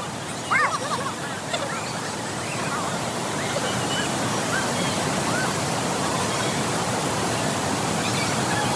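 Steady rush of waterfall water, a little louder after a couple of seconds. A voice sounds briefly about half a second in, with faint distant voices after it.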